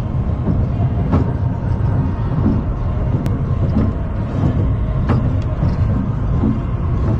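Roller coaster train climbing its chain lift hill: a steady low rumble from the lift with a few sharp clacks here and there.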